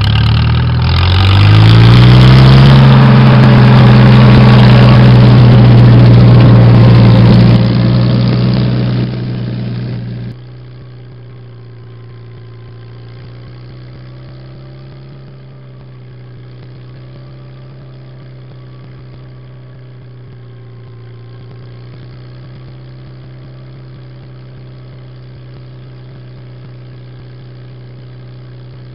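Farmall Super H tractor's four-cylinder engine running close by under load, rising in pitch about two seconds in, very loud, then fading. After a sudden drop about ten seconds in, a tractor engine runs steadily and much more quietly.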